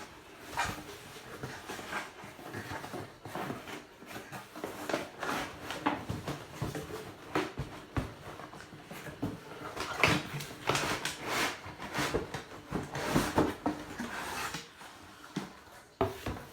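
Irregular rustling and knocking of packaging being handled, with scattered sharp clicks and scrapes at uneven intervals.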